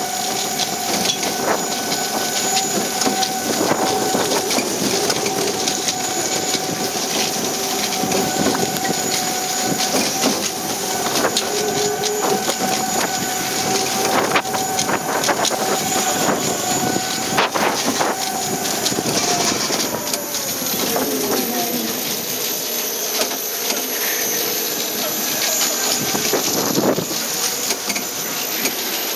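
Steel family roller coaster train running along its track with a steady whine, rattles and clicks, and wind on the microphone. About two-thirds of the way through the whine falls in pitch as the train slows.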